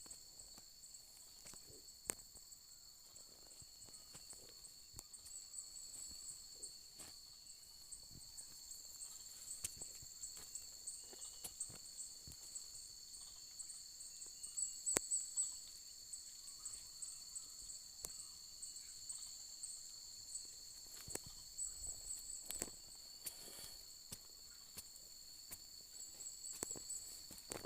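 Steady, high-pitched insect chorus, with one pulsing trill above a constant buzz, and scattered light clicks and knocks.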